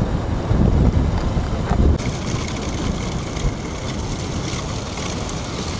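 Heavy wind buffeting on the microphone of a fast-moving motorcycle, over the vehicle's running noise. About two seconds in, the gusts drop away suddenly to a steadier, thinner hiss.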